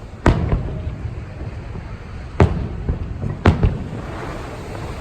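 Aerial fireworks shells bursting: three loud booms, about a second in, two seconds later and a second after that, each trailing off in crackle and echo.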